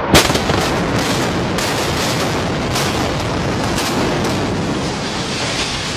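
Explosive demolition of a high-rise tower: a loud bang at the start, then a rapid string of sharp cracks from the charges over a continuous rumble as the building comes down.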